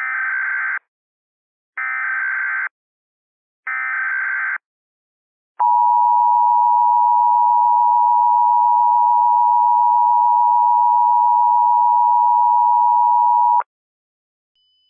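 Emergency Alert System SAME header: three short bursts of warbling digital data tones about a second apart. Then the EAS two-tone attention signal, held steadily for about eight seconds and cutting off abruptly, announcing an alert message.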